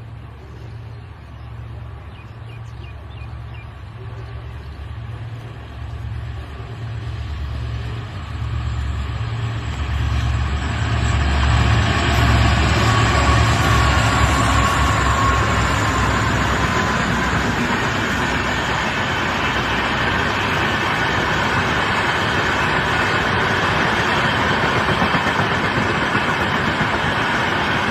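Twin WDP4D diesel-electric locomotives, each with an EMD 16-cylinder two-stroke engine, approaching with a pulsing, humming engine throb that grows steadily louder. From about ten seconds in, the steady noise of the train running past takes over and holds.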